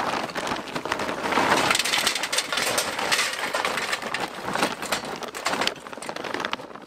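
Charcoal briquettes poured from a bag into a steel chimney starter: a continuous clatter of lumps knocking on the metal and on each other, thinning out near the end.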